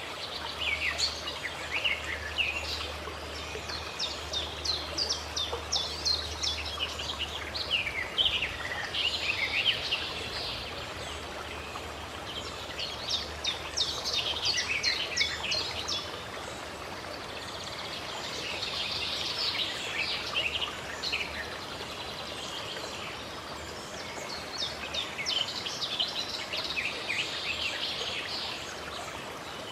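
Songbirds singing in repeated bursts of quick, falling chirps, a few seconds on and a few off, over a steady rush of running water.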